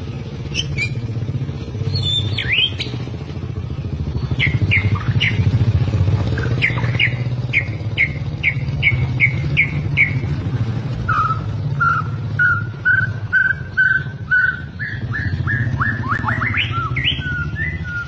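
Albino white-rumped shama (murai batu) singing in clear whistled phrases. Midway it gives a run of repeated notes, about two or three a second. This is followed by a lower series of notes and quick falling sweeps near the end. A steady low hum runs underneath.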